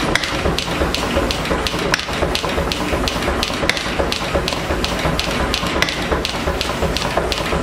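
Power hammer striking a red-hot steel bar in quick, even blows, about three a second, over the steady low running hum and hiss of the machine.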